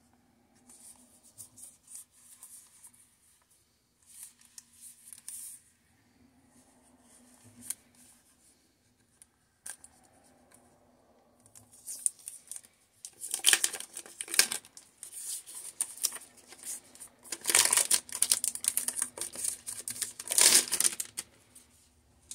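Clear plastic protective film being handled and peeled off a mini PC's case, crinkling and rustling in irregular bursts. It is faint at first and grows loud in the second half.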